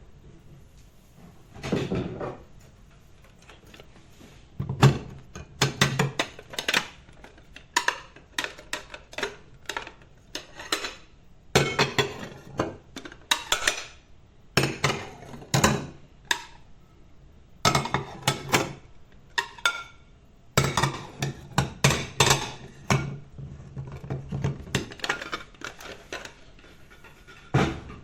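Ceramic plates being sorted and stacked: irregular clusters of clinks and knocks as plates are set down on one another, some leaving a short ring.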